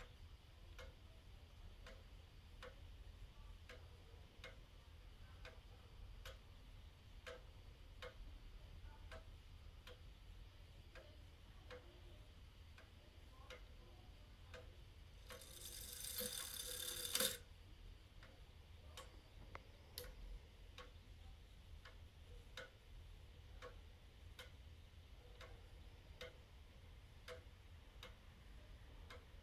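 Antique Frisian tail clock movement ticking faintly and steadily. About halfway through comes a rasping whir of about two seconds that ends in a sharp click, the loudest sound, while the wheelwork is being turned by hand.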